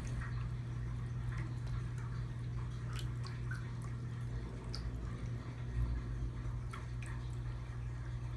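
Electric pet water fountain running: water trickling and dripping in irregular little ticks over a steady low hum.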